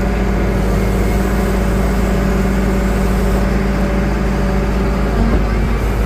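Heavy diesel engines of a tipper dump truck and a backhoe loader running together in a steady low drone, rising slightly in pitch near the end.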